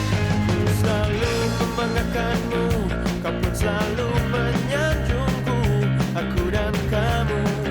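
Background rock music with a steady drum beat, a melody line on guitar or voice, and no speech.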